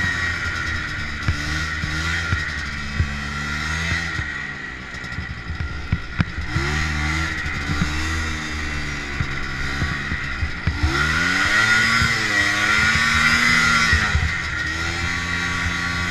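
Arctic Cat snowmobile engine running under way, its revs dropping and climbing again several times as the rider eases off and accelerates through turns, over a steady high whine.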